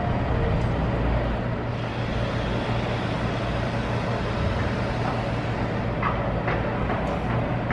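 Hitachi Zaxis high-reach demolition excavator running steadily at a demolition site, its diesel engine giving a low, even drone. From about six seconds in there are a few sharp knocks and cracks as its jaw works into concrete.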